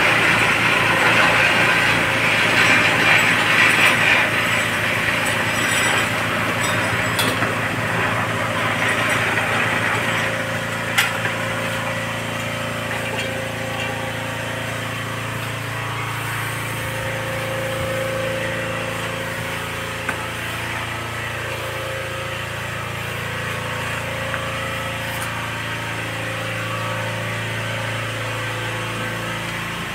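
A steady low engine-like hum of a running motor, with a hiss in the first several seconds and a couple of single sharp clicks around 7 and 11 seconds in.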